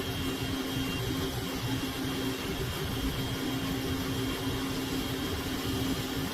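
A machine's electric motor running steadily: a constant hum with a faint high whine, no change in speed.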